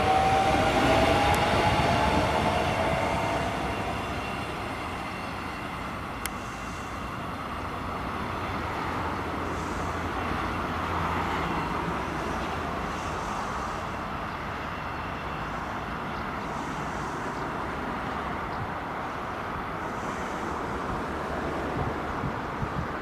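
CP series 2240 electric multiple unit accelerating away, its motors whining upward in pitch for the first few seconds, then its wheels rumbling on the rails as it runs off into the distance, fading and then running on faintly. A single sharp click a little after six seconds.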